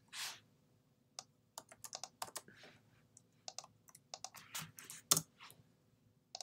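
Typing on a computer keyboard: irregular runs of keystrokes, the loudest click about five seconds in, with a short hiss at the very start.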